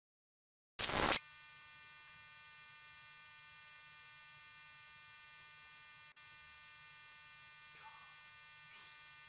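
A short, loud burst of static as the picture cuts in from black, then a faint, steady electronic hum and buzz of a security-camera feed. A few faint warbling electronic tones come near the end.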